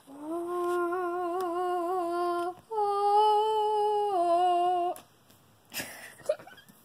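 A child humming: one long note with a slight wobble, then after a brief break a higher held note that steps back down to the first pitch, about five seconds in all. A short rustle follows near the end.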